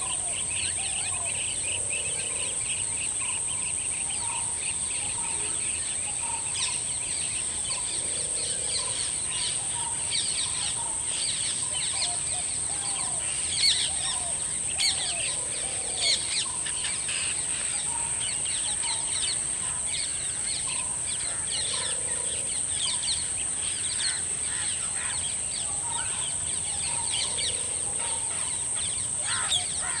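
A chorus of birds chirping and calling over a steady, high-pitched insect buzz, with a soft low call repeating about every five to six seconds.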